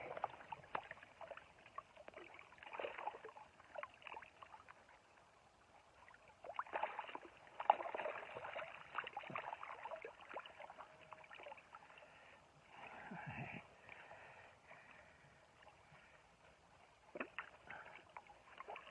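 Water sloshing and splashing in short, irregular spells, with quiet gaps between them, as a keep net full of barbel is worked in the river shallows and the fish are taken out one by one.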